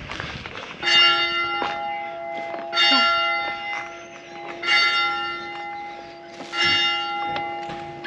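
A church bell tolling: four strikes about two seconds apart, each ringing on so that the hum carries through between strikes.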